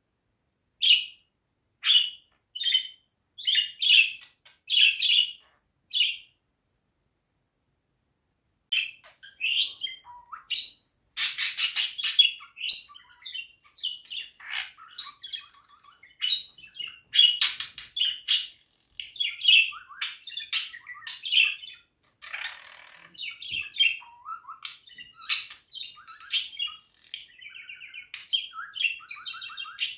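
Budgerigar chirping: a few separate short chirps, a pause of a couple of seconds, then a long run of rapid chattering warble.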